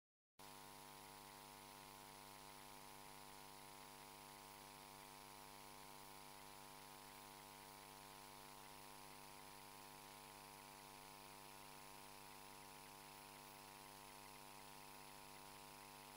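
Near silence with a faint, steady electrical hum on the audio line, beginning about half a second in after a moment of dead silence.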